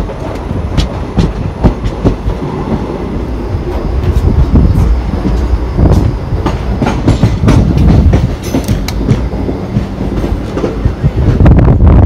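Indian Railways passenger coach running at speed, heard at its open door: a loud steady rumble with the clickety-clack of the wheels on the track, irregular sharp clicks throughout.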